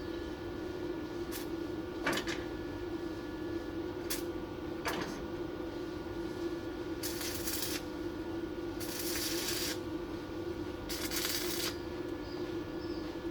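Arc welding in short tacks: three bursts of hiss, each under a second, over a steady machine hum, with a few sharp clicks before them.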